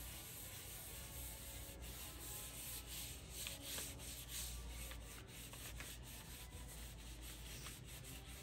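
Soft cloth rubbing butcher block oil into a wooden cutting board: a faint, steady wiping with a few light scuffs.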